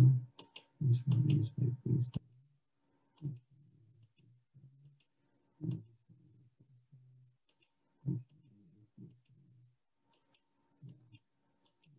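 Brief speech at the start, then single computer mouse clicks every two to three seconds as vertices of a line are placed on screen.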